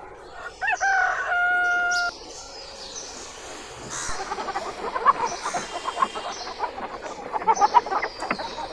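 A rooster crows once, its call rising and then holding level before it cuts off about two seconds in. A few seconds later, chickens start up a busy, choppy clucking.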